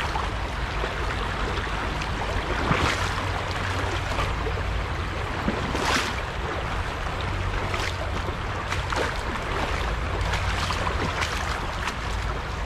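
Shallow creek water running over rocks in a riffle, a steady rushing, with a few sharper splashes from wading steps through the water.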